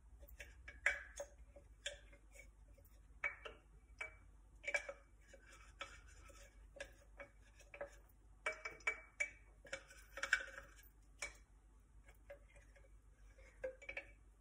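A spatula tapping and scraping cocoa powder out of a small container into a Thermomix bowl: faint, irregular light clicks and short scrapes, a few a second at times.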